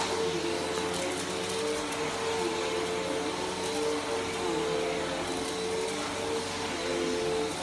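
Bissell PowerForce Helix Turbo upright vacuum cleaner running steadily on carpet: a constant motor whine over airflow noise, its lower tones shifting a little as it is pushed back and forth.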